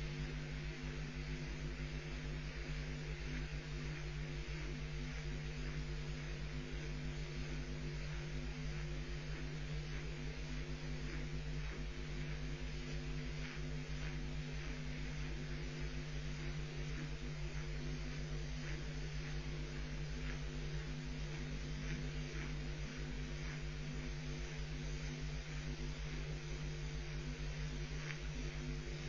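Steady electrical hum and hiss from a nest webcam's audio feed, with faint scattered clicks.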